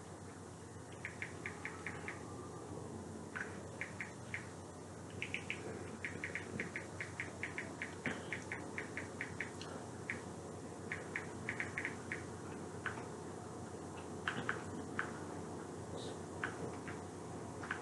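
Runs of short, high-pitched clicks or chirps, a few to a dozen in a row at several a second, with pauses between runs, over a faint steady room hum.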